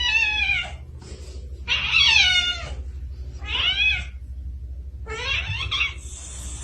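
A cat meowing repeatedly: four drawn-out meows, each rising and then falling in pitch, with short gaps between them.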